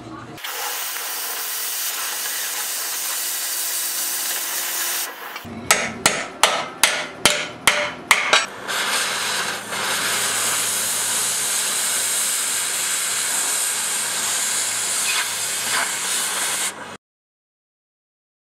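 Oxy-acetylene cutting torch hissing steadily against a steel frame rail, then a run of about eight sharp knocks roughly a third of a second apart, then the torch hissing more strongly as it cuts through the steel, cutting off suddenly near the end.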